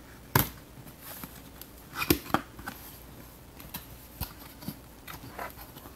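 Corrugated cardboard shipper box handled and opened by hand: its flaps are pulled and bent open, with sharp cardboard knocks and scrapes. The loudest knock comes about half a second in, a cluster follows around two seconds in, then lighter clicks and rustles.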